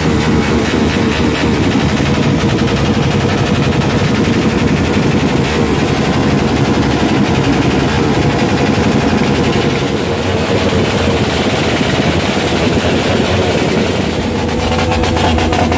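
Small racing street motorcycle engine revved hard and held at high revs, giving a loud, rapid staccato exhaust note.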